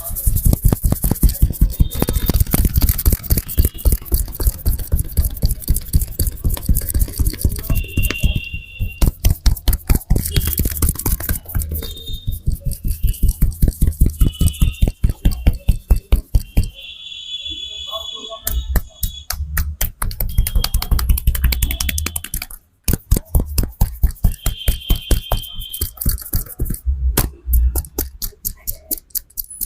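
Rapid rhythmic hand slaps and chops of a barber's head massage, several sharp strikes a second, with short high-pitched tones now and then. The strikes pause briefly a few times.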